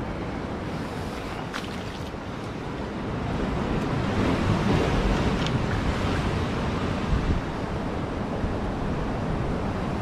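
Ocean surf washing against a rock shelf, with wind buffeting the microphone; the wash grows a little louder about three seconds in.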